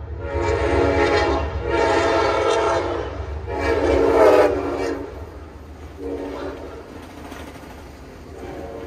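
Train air horn with several chime notes sounding three long, loud blasts and then two fainter ones. Under it runs the low, steady rumble of a passing double-stack freight train.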